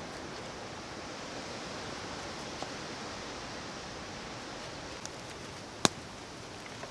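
Steady hiss of an open campfire burning, with a few faint ticks as a knife slices onion into a wooden bowl, and one sharp click near the end.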